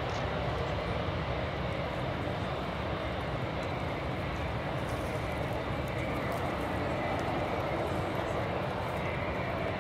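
Airliner jet engines running steadily at low power as an Airbus A380 with four Rolls-Royce Trent 970 turbofans taxis, a constant rumble with a faint high whine.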